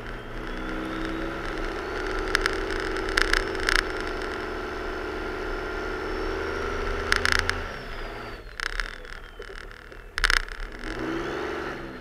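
Cummins turbo-diesel inline-six of a Dodge Ram 2500 working under load while its front V-plow pushes heavy, dense snow. The engine note climbs in the first two seconds and holds steady with a high whistle climbing slowly, then drops back about eight seconds in. Several sharp knocks from the plow and snow are scattered through, and the engine rises again briefly near the end.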